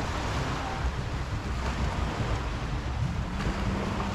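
Beach ambience: wind buffeting the microphone over the wash of small waves on the shore. A low steady hum joins for about a second near the end.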